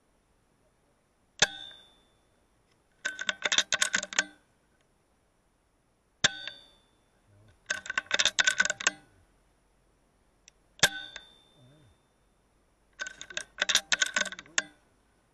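Three air rifle shots, each a sharp crack with a short ringing tail, about every four to five seconds. Each shot is followed about a second and a half later by a run of rapid metallic clicks, like the action being worked to load the next pellet.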